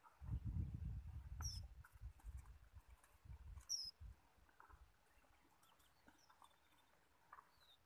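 Low wind gusts buffet the microphone over the first few seconds. A bird gives two short, high chirps that drop in pitch, about a second and a half and nearly four seconds in. Faint rustling and cropping come from cattle grazing in the bushes.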